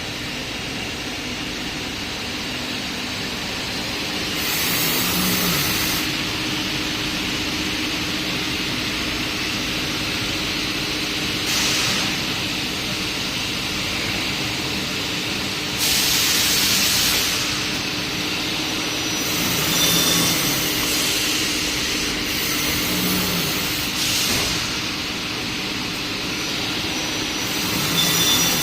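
Six-sided CNC drilling machine running in a workshop: a steady machine hum with short bursts of high hiss recurring every few seconds.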